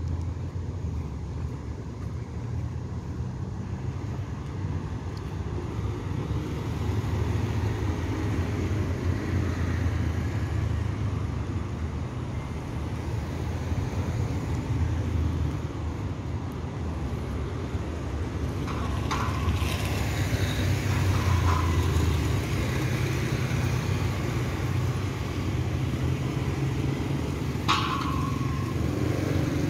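Roadside street ambience: a steady low rumble of passing car traffic. A few short sharp sounds come in the last ten seconds.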